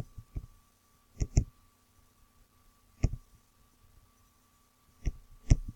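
Sharp computer mouse clicks: a quick pair a little over a second in, one about three seconds in, and two or three more close together near the end, over a faint steady hum.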